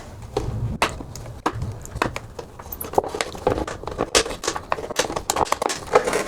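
PET plastic bottle crackling and clicking as a strip is pulled off it and cut on a Swiss Army knife blade, in many short, irregular clicks.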